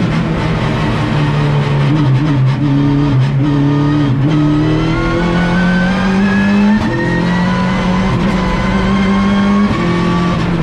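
Opel Astra TCR race car's turbocharged four-cylinder engine, heard from inside the cockpit, running hard on track. After some shorter bursts of throttle it pulls with a long rising pitch from about four seconds in, upshifting about seven seconds in and again near the end.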